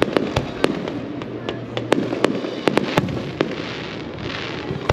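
Fireworks display: a rapid run of sharp bangs and pops from aerial shells bursting, about a dozen in the first three and a half seconds, then a short hiss near the end.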